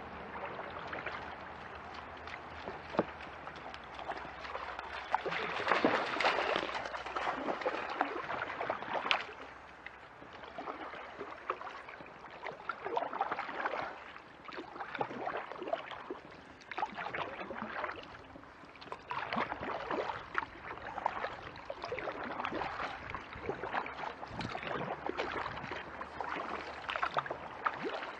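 Kayak paddle strokes: the blade dipping and pulling through creek water in a steady rhythm of splashy swells, about one a second, with water moving along the hull.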